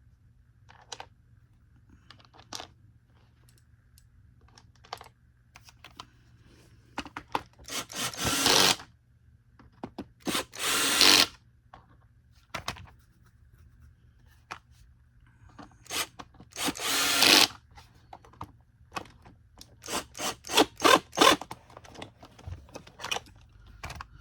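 Screws being driven back into a Bissell Cleanview upright vacuum's plastic motor cover, with scattered clicks and rattles of the plastic parts and three loud bursts of about a second each, then a quick run of clicks near the end.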